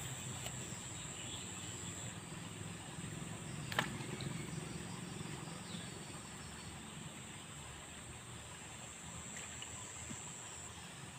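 Outdoor riverside ambience: a steady high insect drone that drops away about two seconds in and comes back near the end, over a low rumble of moving air or water. A single sharp click about four seconds in.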